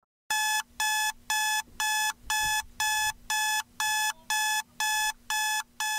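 Electronic alarm beeping in a steady, even rhythm of about two beeps a second, starting a moment in. Under it is a faint steady hum.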